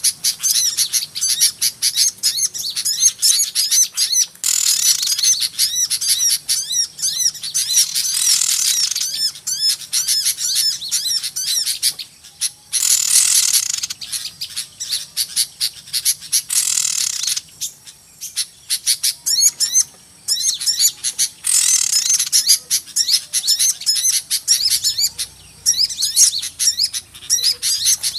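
Bird-lure recording of a flock of small birds calling noisily together: rapid, overlapping high-pitched chirps, broken several times by harsher rasping bursts lasting a second or more.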